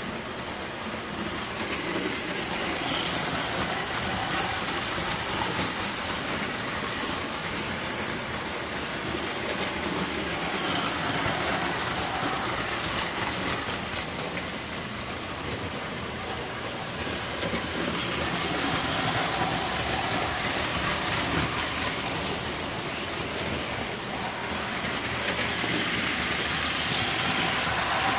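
Lionel tinplate toy trains running on three-rail tinplate track: a steady metallic rumble and clatter of wheels and motors, swelling and easing every several seconds as trains pass close by.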